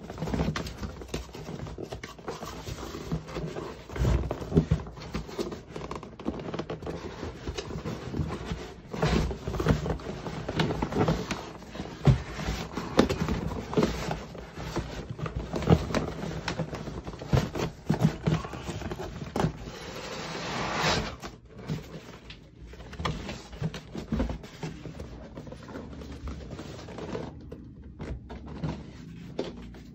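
Cardboard boxes being handled: a boxed espresso maker scraping, bumping and knocking against the walls of its cardboard shipping carton as it is worked loose and lifted out, with a louder drawn-out scrape about two-thirds of the way through.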